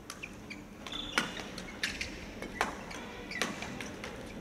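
Badminton rally: sharp racket strikes on the shuttlecock, about one every three-quarters of a second, with short squeaks of shoes on the court floor.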